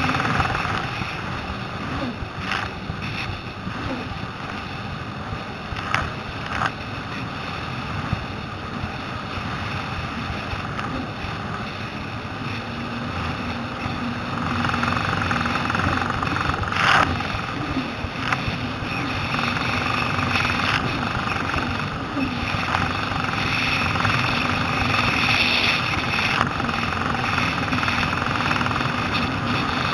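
Jet ski engine running under way over choppy water, with a few sharp knocks. The noise grows louder about halfway through.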